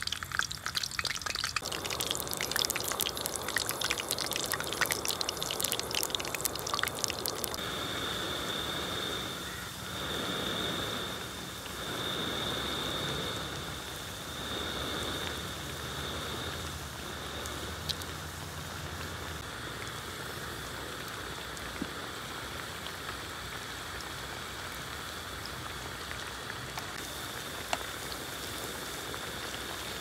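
Potato snack pieces deep-frying in a pan of hot oil: dense crackling and spitting for the first several seconds, then settling to a steadier, softer sizzle.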